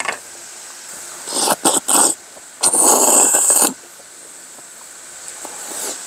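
Close-up breathy mouth and nose noises from a man eating noodles: a few short hissing rushes, then one loud rush about a second long near the middle.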